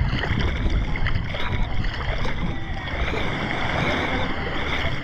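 Steady sloshing and splashing of shallow water around a person wading, over a constant low rumble.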